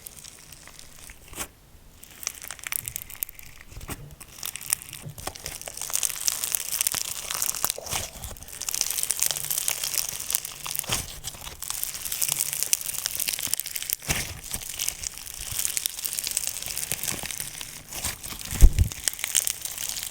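Slime being squished and stretched by hand, a dense run of small crackles and crinkles that starts about two seconds in, with one low thump near the end.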